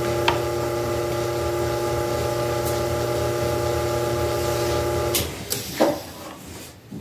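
Old belt-driven metal lathe running with a steady hum and whine from its electric motor and belt drive. It is switched off about five seconds in, and a few short knocks follow as it stops.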